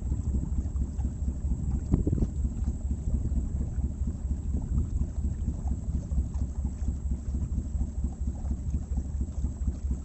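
Steady low rumble of a boat under way on a river, mixed with wind buffeting the microphone.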